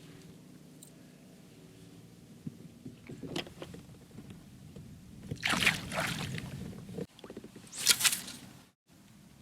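Water splashing and sloshing beside a kayak in two loud bursts, the first about five and a half seconds in and the second near the end, over a low steady hum with a few soft knocks before them.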